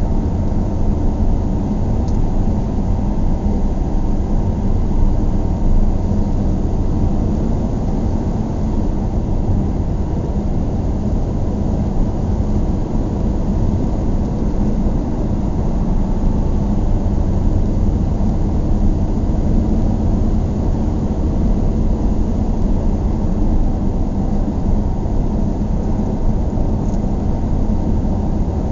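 A car driving at a steady pace: an even, low rumble of engine and road noise with no change in speed.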